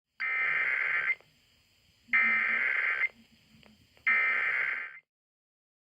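Emergency Alert System SAME header: three identical bursts of warbling digital data tones, each about a second long, with a one-second pause between them. They mark the start of a Required Monthly Test.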